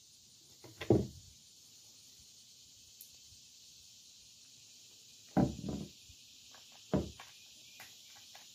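Handling noise from a rifle being worked by hand at a wooden table: a clunk about a second in, a quick cluster of clunks around the middle, another clunk near the end, then a few light clicks.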